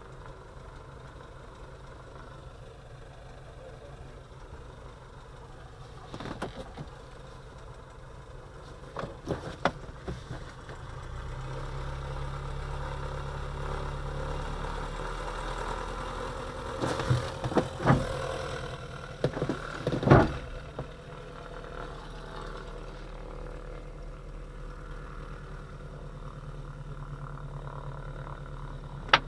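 Tow plane's piston engine running at low power as it taxis into position ahead of the glider, heard from inside the glider's closed cockpit as a steady hum that swells a little midway. Several knocks and clunks sound close by in the cockpit, the loudest a little over halfway through.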